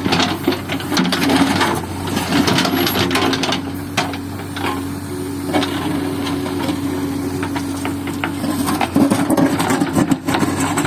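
JCB backhoe loader's diesel engine running with a steady drone while its bucket scrapes and breaks up an asphalt road surface, giving repeated irregular cracks, knocks and grinding.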